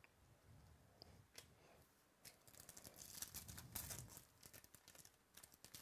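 Foil wrapper of a Topps Chrome baseball card pack being torn open and crinkled by hand, a dense crackle loudest about three to four seconds in. Before it, faint rustling of cards being handled.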